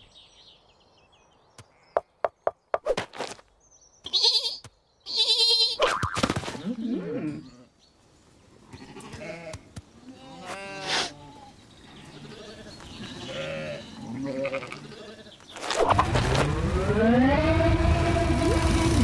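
Cartoon character vocalisations: the sheep's bleats and mumbles and the clay mole's grunts, with a few sharp clicks about two seconds in. Near the end a loud rumbling noise sets in, carrying a tone that rises and then holds steady.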